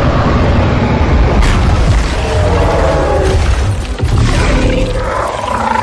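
Sci-fi action sound effects: a deep, loud booming rumble with a sharp impact about a second and a half in, under a dramatic orchestral score.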